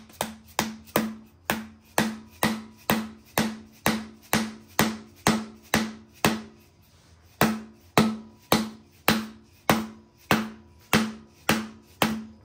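Mallet blows on a tight-fitting rod driven into an LS V8's crankshaft pilot bearing bore packed with bread, about two blows a second with a brief pause about halfway, each hit ringing briefly. Each blow forces the bread against the old pilot bearing, pushing it out of the crank.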